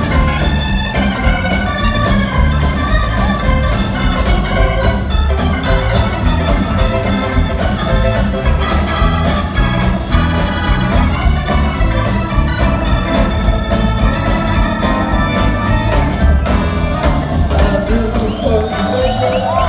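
Live blues band with a Hammond organ taking the lead over drums, bass and electric guitar, the drums keeping a steady beat.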